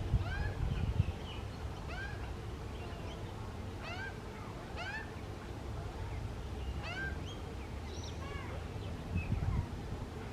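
Young Australian magpies calling: short squawks that bend up and back down, with a few overtones, repeated about every second, sometimes two overlapping. A low rumble sits under them in the first second and again near the end.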